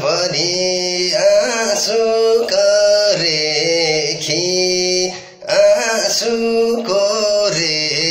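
A man singing a Nepali song solo, drawing out long, wavering held notes, with a brief break for breath about five seconds in.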